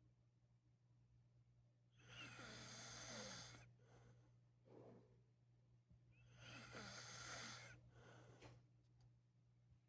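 A man snoring in his sleep: two long snores about four seconds apart, with a short faint breath between them.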